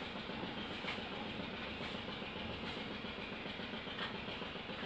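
Steady rumbling background noise, with a few faint clicks about a second apart.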